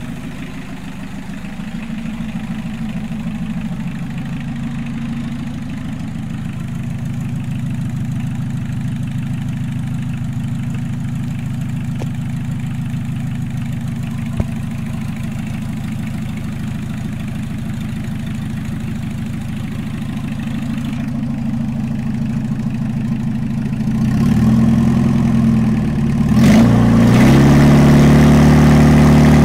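VW 1.6 diesel engine, out of the car, idling steadily, then revved up near the end: once briefly, then higher and held.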